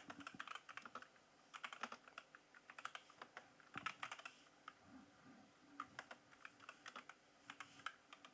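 Computer keyboard typing, faint keystroke clicks in quick bursts with short pauses between them.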